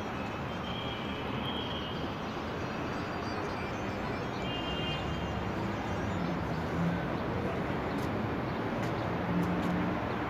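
Steady wash of city traffic noise, with faint brief tones in it now and then.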